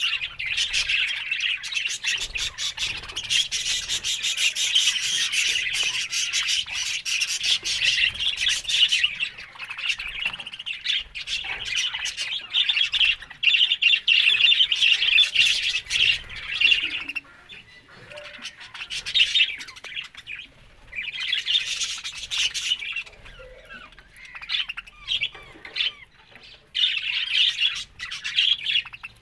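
Pet budgerigars chattering and squawking, a dense run of fast chirps for the first half, then in separate bursts with short pauses between.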